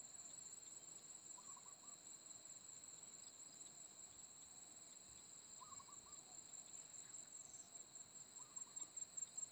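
Faint, steady high-pitched trilling of insects in the grass. Three short, faint calls come about three seconds apart, and a soft rhythmic pulsing begins near the end.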